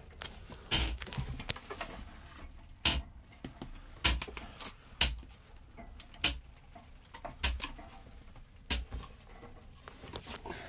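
Handling noise: irregular sharp clicks, knocks and rubbing as the camera is moved about and bumped against things, with a dozen or so separate knocks at uneven spacing.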